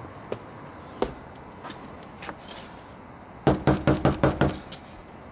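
Knuckles knocking on a front door: a quick run of about seven knocks, well over halfway through, after a couple of faint single thumps.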